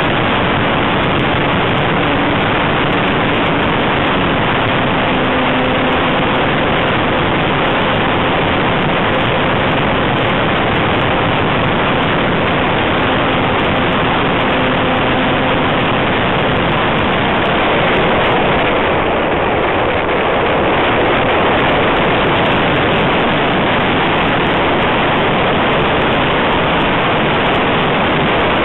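Wind rushing over the microphone on a flying model Cub airplane, with the faint steady drone of its motor and propeller underneath. The rush changes slightly about two-thirds of the way through.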